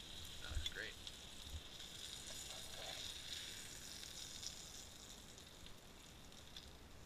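Oil and butter sizzling faintly and steadily in a frying pan around the fried smallmouth bass fillets, the heat just switched off. Two soft knocks come about half a second and a second and a half in.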